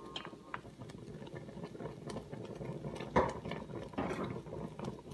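Coconut mixture bubbling and popping in a steel pot at the boil, a steady crackle of small pops. A sharp knock about three seconds in.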